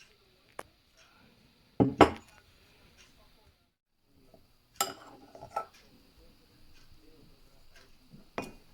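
Clinks and knocks of dishware being handled. The loudest is a double knock about two seconds in, with more knocks around five seconds in and one near the end.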